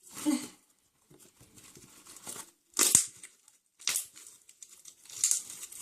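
Homemade fluffy slime, made with shaving foam, being stretched and squeezed by hand so that its trapped air bubbles pop. There are four sharp pops with softer crackling between them.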